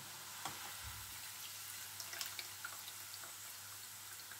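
Faint sizzling of hot oil around dark-brown fried onion rings as they are lifted out of the pot with a ladle, with a few light crackles and ticks.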